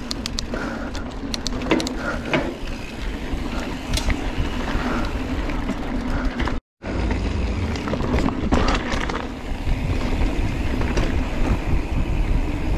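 Giant Trance 3 full-suspension mountain bike riding fast along a dirt singletrack, heard from a camera on the bike: tyre rolling noise and wind rumble on the microphone, with frequent clicks and rattles from the chain and frame over bumps. The sound drops out completely for a split second just past halfway.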